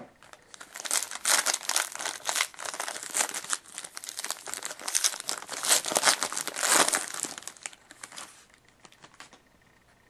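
Plastic wrapper of a trading card pack being torn open and crinkled by hand, a dense irregular crackle that dies away about eight seconds in, after a sharp knock at the very start.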